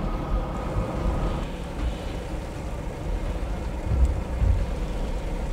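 Steady low rumble of boat engines and machinery at sea, with a faint steady hum and wash of wind and water. The rumble swells briefly about four seconds in.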